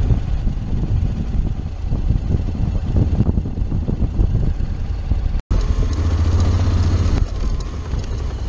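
Honda X-ADV's 745 cc parallel-twin engine running at low revs while the scooter rolls slowly, with a constant low rumble. The sound breaks off for an instant about two-thirds of the way through, after which the engine hum is louder and steadier for a second or two.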